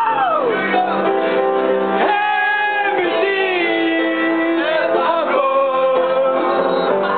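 A voice singing over guitar accompaniment, with a long held note in the middle.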